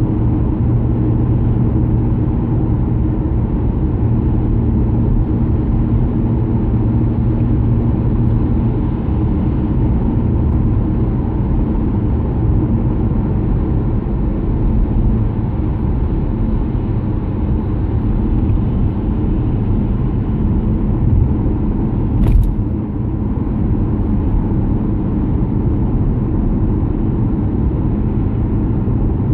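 Steady low drone of a car's engine and tyres on a wet road, heard from inside the cabin. A single brief click sounds about three quarters of the way through.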